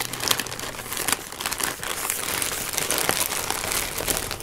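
Shipping package being opened by hand: a dense, continuous crinkling and rustling of the packaging.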